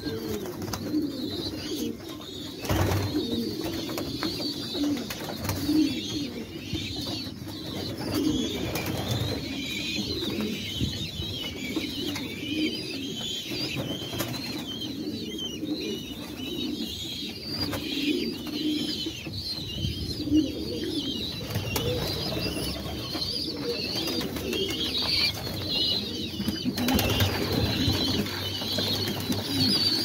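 A flock of domestic pigeons cooing continuously in their loft, with steady high-pitched chirping above the cooing.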